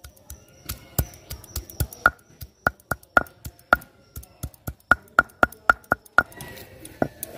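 Stone roller of a shil-nora grinding stone pounding garlic cloves on the flat stone: a quick run of sharp stone-on-stone knocks with a short ring, about three to four a second, stopping shortly before the end.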